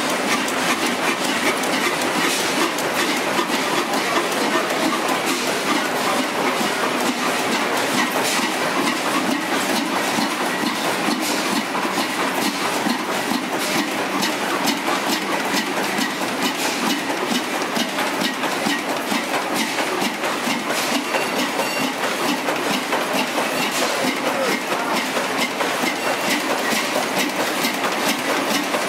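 Several vintage stationary engines running together, a steady dense mechanical clatter of valve gear and moving parts without a break.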